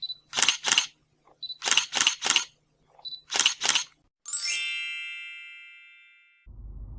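Camera shooting: a short high focus beep followed by quick shutter clicks, three times over (two clicks, then three, then two). Then a bright chime strikes once and rings out, fading over about two seconds.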